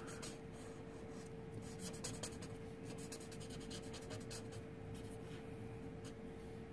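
Faint, quick strokes of a Copic marker tip colouring on paper, coming in short irregular passes, with a steady faint hum underneath.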